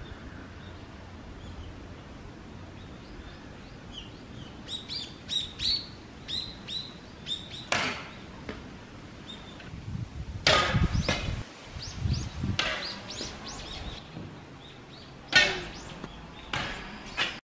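Small birds chirping and calling in a run of short, quick notes, with a few sharp cracks of yumi bowstrings snapping forward as arrows are loosed. The sound cuts off suddenly near the end.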